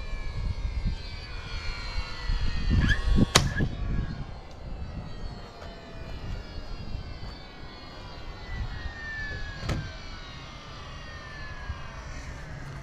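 An aircraft passing overhead, its engine whine slowly falling in pitch over a low rumble. A sharp knock about three seconds in, the loudest sound, and a smaller one near ten seconds.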